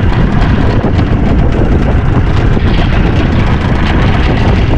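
Loud, steady wind on the microphone over open water: a continuous low rumble with a rushing hiss above it.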